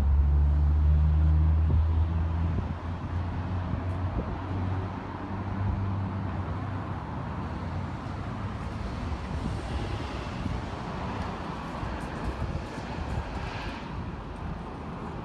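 A motor vehicle's engine hums low and steady for the first couple of seconds, then fades into outdoor road and wind noise, which swells briefly in the second half.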